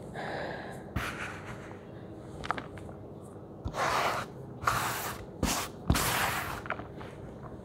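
Hands crumbling and stirring dry sand clumps in a plastic basin: gritty crunching and rustling with small clicks, then several louder sweeping rushes of sand in the second half.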